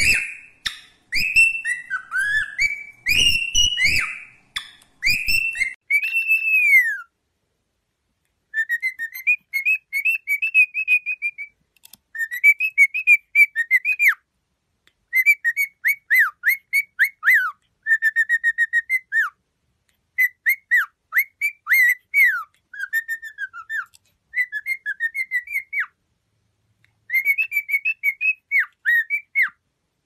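Cockatiel whistling song: long sweeping whistles with a few clicks in the first six seconds, then short phrases of rapid warbling chirps separated by brief pauses.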